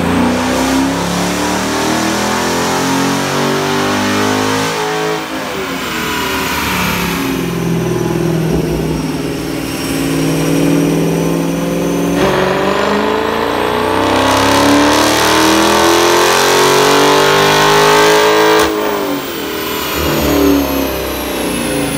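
Dodge Charger's 6.4-litre 392 HEMI V8, with aftermarket intake and exhaust, making a full-throttle pull on a chassis dyno. The engine note climbs in long rising sweeps and drops sharply twice, about 12 and 19 seconds in, as the transmission shifts up.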